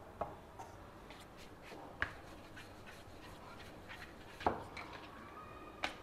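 Rolling pin rolling out a small ball of wheat dough into a roti: soft rubbing with a few light knocks, the loudest about four and a half seconds in.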